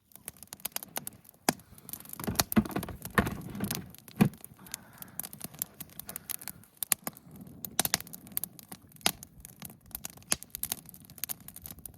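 Wood campfire crackling and popping in a steady, irregular run of sharp clicks, with a louder, rougher patch of knocks and rustling about two to four seconds in.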